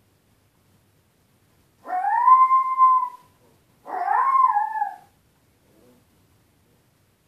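Puppy howling twice while left alone by his owners: two drawn-out howls of about a second each. The first rises and holds steady; the second, a second later, rises and then falls away.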